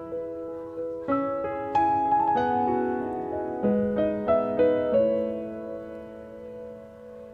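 Background piano music: a gentle melody of struck notes and chords that ring and fade, dying away near the end.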